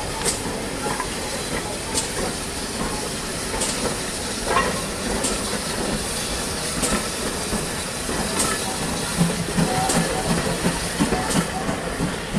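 GWR steam locomotive moving slowly past with a steady hiss of steam, and a sharp click about every second and a half.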